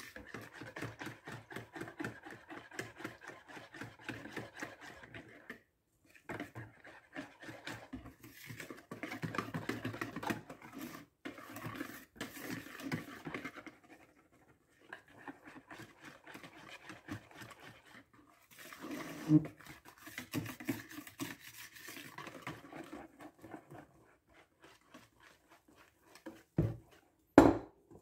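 A hand whisk beating muffin batter in a bowl: fast, rhythmic scraping strokes that pause briefly now and then. A sharp knock comes near the end.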